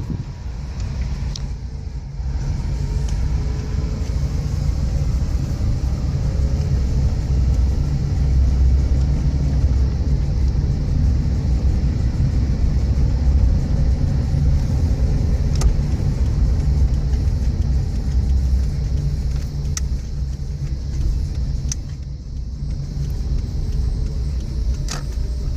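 Steady low rumble of a motor vehicle running, with a few faint ticks.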